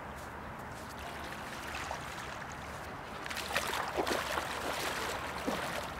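Bare feet wading into shallow river water, splashing irregularly with each step from about three seconds in, over a steady low rush of the river.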